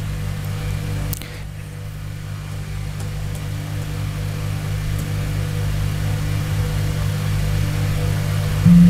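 A steady low hum with several constant low pitches in it, briefly louder just before the end, with a few faint clicks over it.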